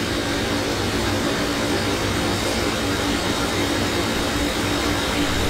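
Steady background noise: an even hiss with a low, constant hum, like a fan or air conditioner in the room, with no speech.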